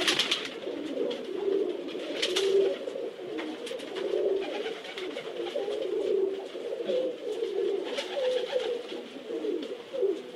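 Racing pigeons cooing steadily, a low warbling that goes on without a break, with scattered sharp clicks and taps.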